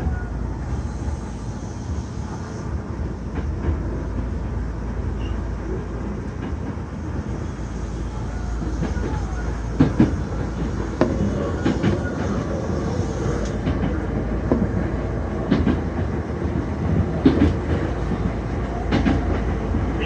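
Hankyu Kobe Line electric train running, heard from inside the carriage: a steady low rumble with rail-joint clacks, loudest and most frequent from about halfway through. Typhoon gale winds howl against the car.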